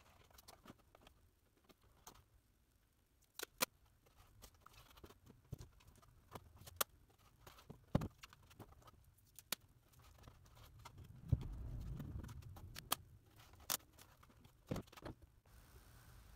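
Scattered light clicks and taps of foam board and tools being handled on a cutting mat, with a longer low rumble of handling noise about two-thirds of the way through.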